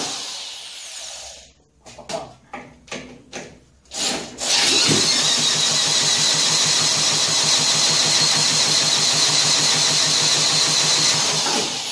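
Corded electric drill spinning over a 1959 Mitsubishi Silver Pigeon scooter engine through a socket adapter, without the engine catching. The drill winds down in the first second or so, gives a few short trigger bursts, then runs long and steady with a regular beat until near the end.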